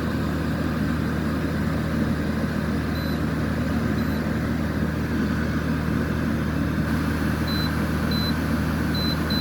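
Garage air conditioners and a dehumidifier running together: a steady electrical hum under a constant blowing fan noise. Short, high-pitched electronic chirps come twice around 3 to 4 seconds in and again several times near the end.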